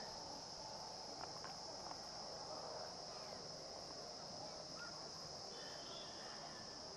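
Faint outdoor ambience dominated by a steady, high-pitched insect chorus, typical of crickets, with a soft background hiss.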